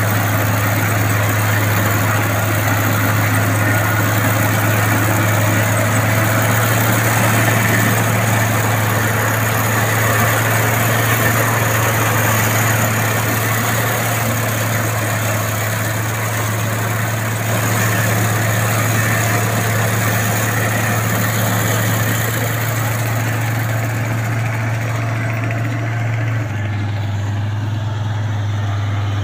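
Tracked rice combine harvester running steadily while it cuts and threshes paddy: a constant engine hum under the broad, even whirr of the cutting and threshing machinery. The hum steps slightly lower near the end.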